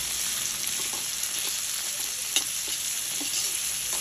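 Chopped garlic, onion and tomato sizzling in hot oil in a metal wok, with a metal spatula scraping and tapping against the pan every second or so as it stirs; the sharpest tap comes a little past halfway.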